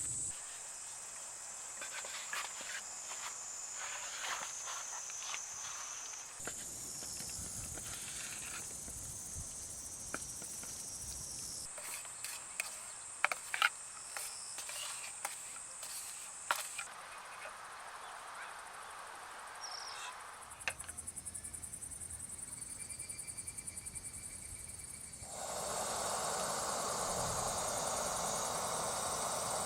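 Insects chirring steadily in a high, even band, with scattered sharp clicks and knocks. The background changes abruptly several times, and about 25 seconds in a louder even hiss joins.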